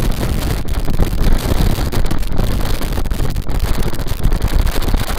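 Loud wind noise buffeting the microphone on a moving boat, an uneven rumble with a hiss of rushing air and water over it.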